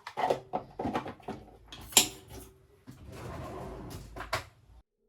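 Handling of refrigerator parts during cleaning: a run of irregular knocks and clicks, a sharp loud click about two seconds in, a stretch of steady scraping, and one more click before it stops suddenly.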